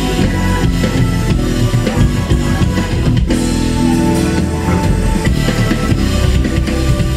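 Electric bass guitar played live over an electronic drum-and-bass backing track with a busy drum beat.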